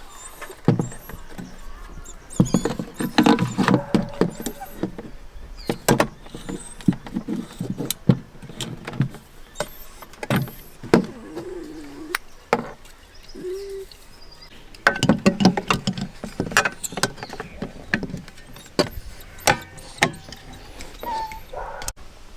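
Irregular knocks, clicks and clatter, bunched into busier spells, with two short pitched squeaks or whines around the middle.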